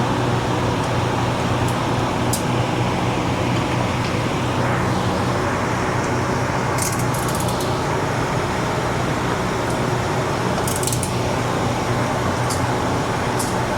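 A steady mechanical hum like a shop fan runs throughout. Light metallic clicks and clinks come from hand tools on the ATV's shock bolts, with a short cluster about halfway through and another near the end.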